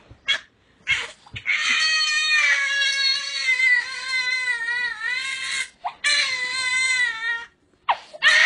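Baby crying in loud, high wails: a couple of short sobs, then a long wail of about four seconds, a shorter one after a catch of breath, and a third starting at the end. It is a tantrum at having the mobile phone taken away.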